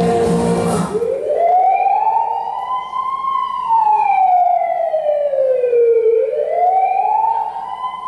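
A song cuts off about a second in and a wailing siren takes over: one slow rise, a long fall, and a second rise near the end.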